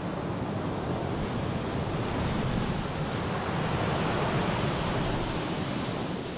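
Sea surf breaking and washing up a sandy beach: a steady rush of surf noise that swells toward the middle and eases off near the end.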